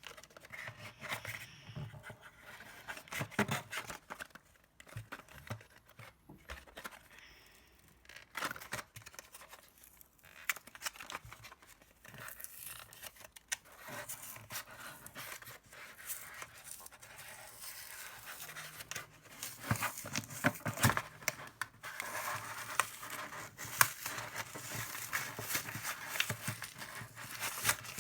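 Toy packaging being opened by hand: cardboard and plastic tearing, crinkling and scraping, with scattered clicks, busier and louder in the last third.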